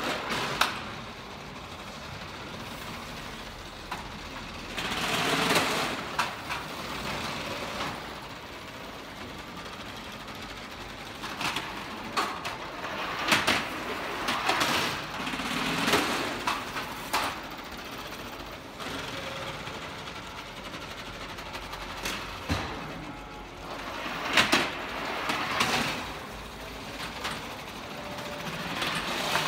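Trays of parts rolling along the roller tracks of an aluminium-tube karakuri gravity rack, a rattling run of a few seconds several times over, with sharp clicks and knocks of metal and plastic between.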